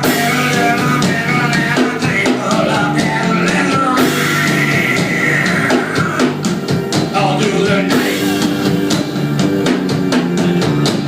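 A rock band's instrumental break: drum kit keeping a steady beat under guitar and bass, with a lead melody line over the top and no sung words.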